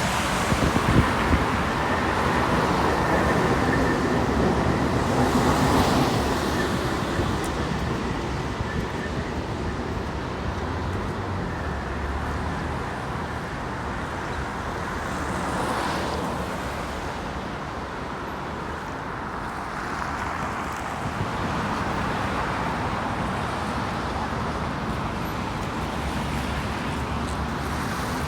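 Steady road traffic noise, with vehicles passing by about six and sixteen seconds in.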